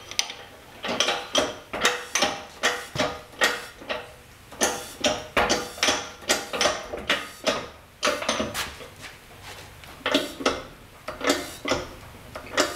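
Irregular metallic clanks and clinks, about two or three a second, each with a brief ring: steel parts and tools knocking together while being handled at an old drill press. There is a short lull about three-quarters of the way through.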